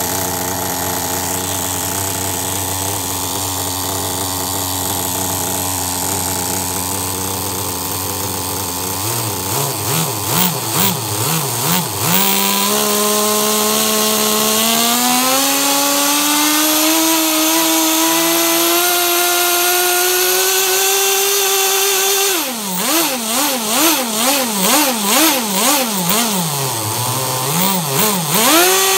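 Kyosho V-One S3's small nitro glow engine running on the bench during a test of when its two-speed transmission shifts into second gear. It idles steadily for about nine seconds and is then blipped up and down. Near twelve seconds it is held at high revs and climbs slowly for about ten seconds, then it is blipped rapidly again and revs up sharply near the end.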